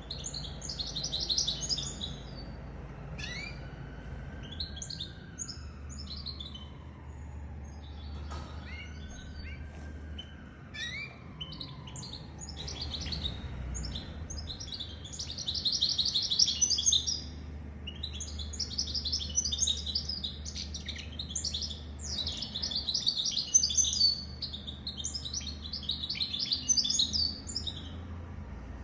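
Goldfinch mule, a goldfinch × canary hybrid, singing: bursts of fast, high twittering phrases several seconds long, denser and louder in the second half.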